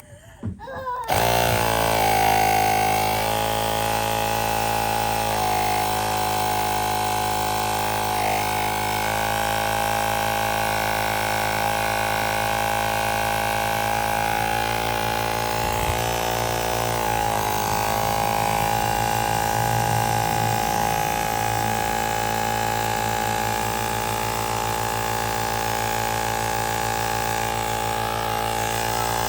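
Portable cordless tire inflator's air compressor switching on about a second in, then running steadily.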